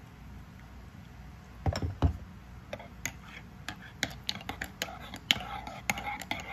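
Metal teaspoon clinking against a ceramic mug while stirring coffee: a quick, irregular run of light clinks with a faint ring from the mug. A little before the stirring, two dull knocks.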